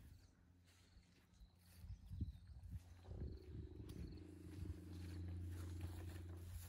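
African elephant rumbling: a low, steady, purring rumble that starts about three seconds in and lasts about three and a half seconds, after a few soft knocks.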